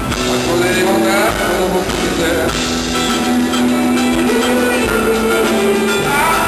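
Live band playing an instrumental passage, a lead melody of long held notes that slide between pitches over guitar and a full band.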